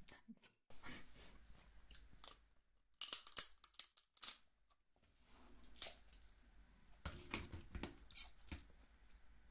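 Snow crab leg being broken and eaten: scattered short cracks and crunches of shell, meat tearing away, and chewing. The loudest clusters come about three seconds in and again about seven seconds in.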